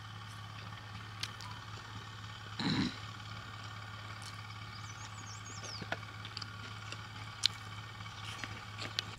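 Faint mouth clicks and lip smacks of someone eating by hand, over a steady low hum. A short bump about two and a half seconds in is the loudest sound, and there are a few brief high chirps a little past halfway.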